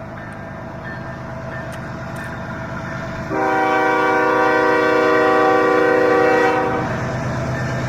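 Train horn sounding one long chord blast of several notes, starting about a third of the way in and lasting about three and a half seconds, over the low rumble and wheel clatter of a passing train.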